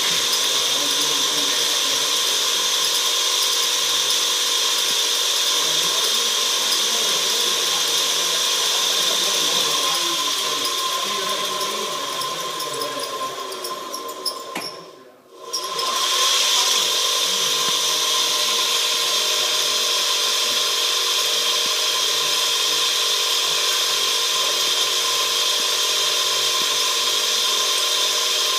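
Small electric motor whirring steadily, like a little drill. It slows to a near stop about halfway through, then starts up again and runs on.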